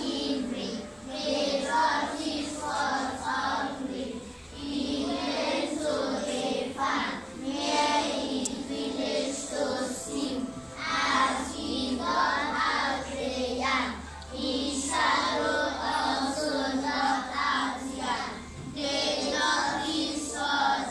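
A group of children singing in unison, in phrases of a few seconds with brief breaks between them.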